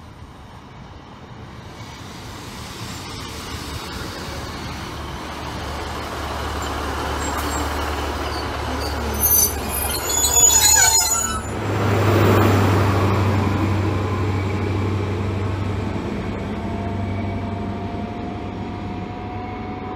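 Class 150 Sprinter diesel multiple unit pulling into a station: its diesel engines hum steadily as it draws near, and its brakes squeal in short high-pitched bursts about halfway through as it slows. Afterwards the low engine hum grows louder, and near the end an engine note rises in pitch.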